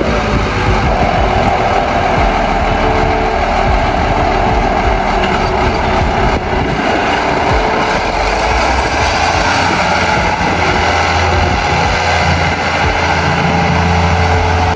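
Ford 8730 tractor's six-cylinder diesel engine running steadily under throttle, its deep low note growing stronger about ten seconds in as the tractor moves.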